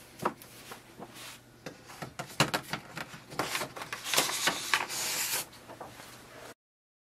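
A stack of A4 paper sheets rustling and sliding into an inkjet printer's rear paper tray, with light taps and scrapes of handling. The sound cuts off abruptly near the end.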